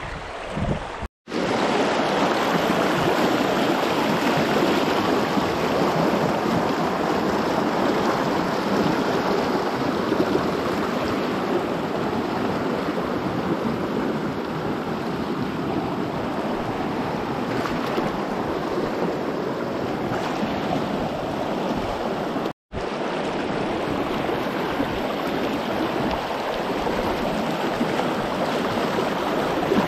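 Shallow, snowmelt-fed mountain creek running fast over rocks, close to the microphone: a steady rush and babble of water. It cuts out completely for an instant twice, about a second in and again about two-thirds of the way through.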